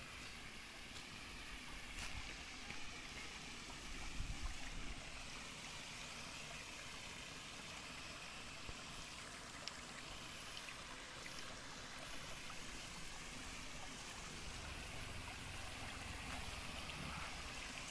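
Shallow rocky creek flowing steadily, water trickling over stones and spilling over a small concrete weir.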